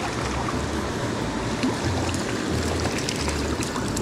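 Small brook rushing steadily, with a few faint clicks.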